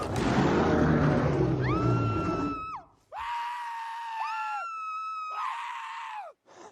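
A burst of loud noise, then a series of high-pitched held screams, four in all, each holding one steady pitch before dropping off, two of them overlapping.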